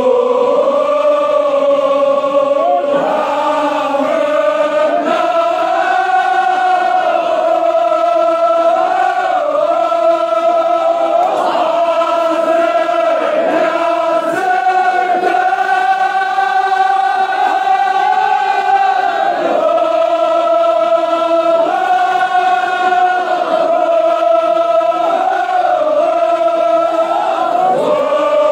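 Kashmiri marsiya, a Shia elegy, chanted by a group of voices in unison, with long held notes that glide from one pitch to the next.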